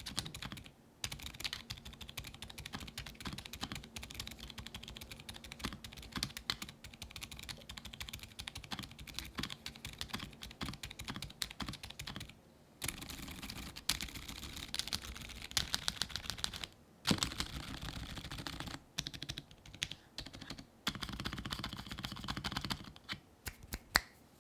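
Fast, continuous typing on a keyboard fitted with Gateron Oil King Purple silent tactile switches (factory-lubed, nylon top housing, POM stem), giving muted keystrokes with a few short pauses. One sharper keystroke comes near the end.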